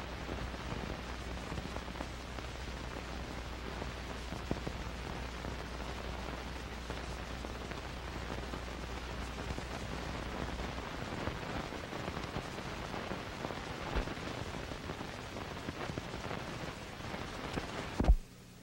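Steady hiss and crackle of an old film soundtrack, with a low hum that stops about eleven seconds in. A short, sharp sound with a falling pitch comes near the end, after which the noise drops away.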